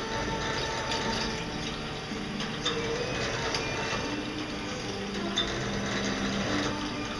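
Sunmill JHV-550 vertical machining center cutting with its spindle turning slowly at about 200 rpm under roughly 30% load: a steady machining noise with several low tones that come and go, and scattered small clicks.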